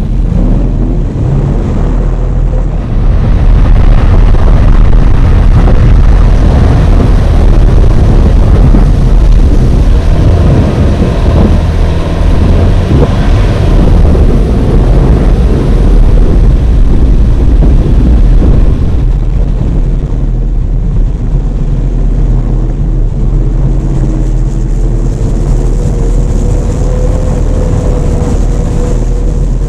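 2019 Suzuki Jimny's 1.5-litre engine running steadily as the jeep drives a rough dirt track, heard from a hood-mounted camera with heavy low rumble from the ground and the mount. A steady higher tone joins in during the last few seconds.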